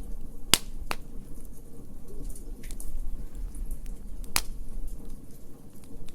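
Wood fire crackling: scattered sharp pops and snaps, three loud ones, over a low steady rumble.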